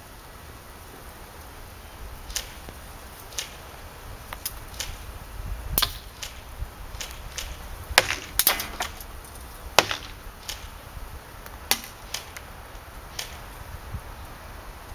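A&K SR25 airsoft electric gun firing single shots: sharp clicks at uneven intervals, the strongest about eight, ten and twelve seconds in, with a quick cluster of clicks around eight and a half seconds.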